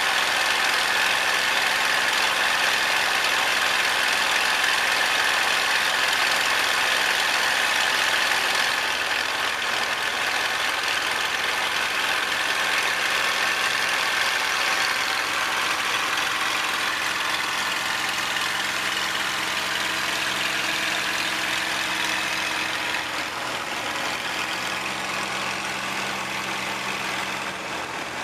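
P-51 Mustang's V-12 engine and propeller droning steadily, heard from inside the cockpit with a loud rush of air over the canopy. The level eases slightly about a third of the way in and again near the end.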